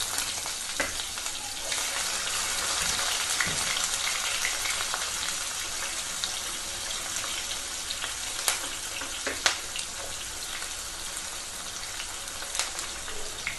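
Sliced onions frying in hot oil with cumin and mustard seeds: a steady sizzling hiss with a few sharp pops and crackles scattered through it, easing slightly over the second half.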